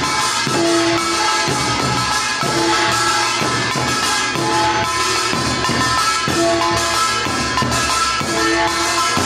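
Korean folk music accompaniment: drums and clanging metal percussion with pitched notes, playing a steady rhythm that repeats about every two seconds.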